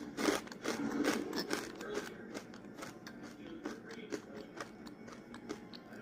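Crunchy rolled tortilla chips being chewed, a rapid run of crunches loudest in the first two seconds, then thinning to fainter crackles.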